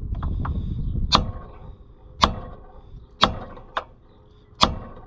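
Hammer blows on a wood block held against the piston of a 1980 Harley-Davidson golf cart's seized engine, trying to knock the rusted-in piston down the cylinder. Five sharp strikes about a second apart, one of them lighter.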